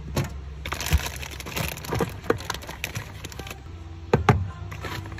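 Metal food cans being handled on a cupboard shelf: a series of sharp knocks and clinks as tins are picked up and set down, with a rustle of plastic packets. Two of the loudest knocks come close together near the end.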